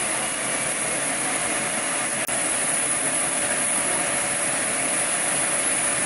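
Fire engine's engine running steadily, an even mechanical noise with a faint steady tone. There is a brief dropout a little over two seconds in.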